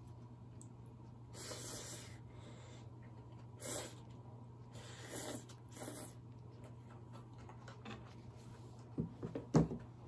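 Frightened cat hissing in four short breathy bursts, then a few soft knocks near the end.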